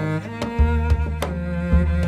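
Background music: deep sustained notes changing pitch every half second or so, with sharp percussive hits keeping a beat.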